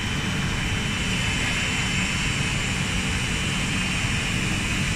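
PVC roof tile production line machinery running: a steady mechanical drone with a low hum and a faint steady high whine above it.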